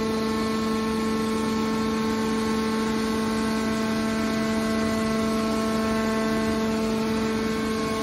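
Hydraulic power unit of a scrap metal baler, an electric motor driving the pump, running under load with a steady hum of several even tones while the hydraulic cylinder swings the press box's lid shut.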